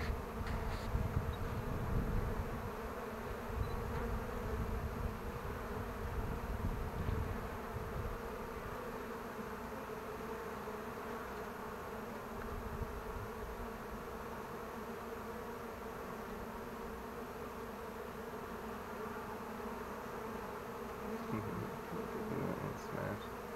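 Honeybee colony buzzing from an opened hive: a dense, steady hum. There is some low rumbling during the first several seconds.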